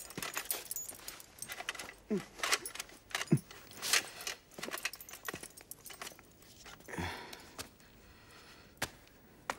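Rope being untied from a prisoner's wrists, with the jingling and clinking of a Roman soldier's metal armour: a string of short clicks and rustles.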